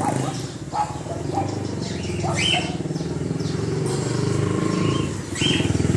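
A small engine running steadily with a fast, even pulse. A bird chirps a few times over it.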